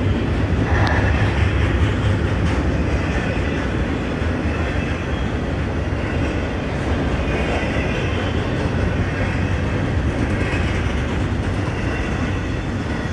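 Intermodal freight train's cars, double-stacked containers and trailers on flatcars, rolling steadily past: a continuous rumble of steel wheels on the rails, slightly louder about a second in.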